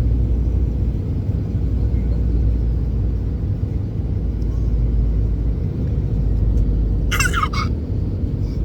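Airliner cabin noise in flight: a steady low rumble of engines and airflow. A brief high-pitched voice cuts in about seven seconds in.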